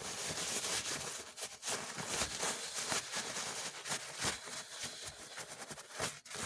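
Irregular light clicks and scrapes of small parts being handled as a Lionel F3 model locomotive's motor truck is put back together.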